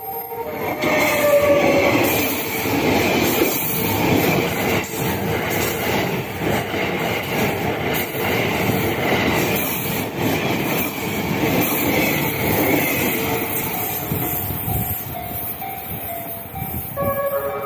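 E001 Train Suite Shiki-shima passing close over a level crossing: loud rolling wheel noise and clatter that swells in just under a second in, holds, and eases near the end, with the crossing's warning bell ringing underneath.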